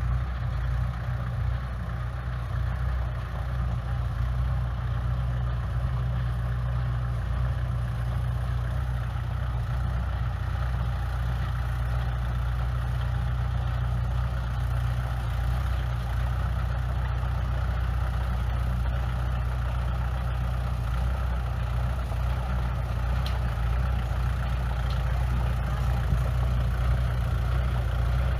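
Heavy diesel engine of construction machinery running steadily at an even speed, a low drone without revving up or down.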